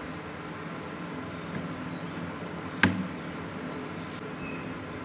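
A single sharp clunk about three seconds in as a rusty steel chisel is dropped into a water-filled plastic tray, over a steady low hum.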